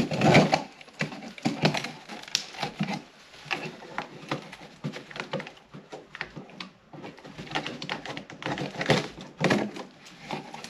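Hands opening the taped top seam of a cardboard shipping box: an irregular run of scratches, rips and clicks from the tape and cardboard.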